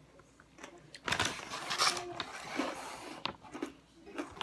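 A plastic snack bag of croutons crinkling and rustling as it is picked up and handled. It starts about a second in and lasts about two seconds.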